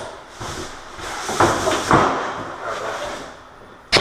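A sheet-metal range hood being pushed down into a cardboard box: scraping and rustling of cardboard, with two knocks about one and a half and two seconds in, then a sharp click at the very end.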